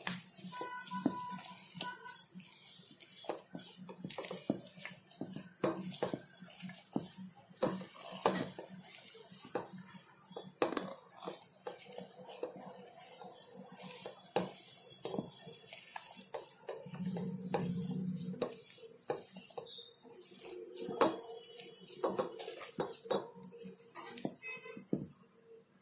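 Hand mixing and kneading sticky idli-batter dough in a steel bowl: frequent irregular clicks and knocks of hand and dough against the metal bowl.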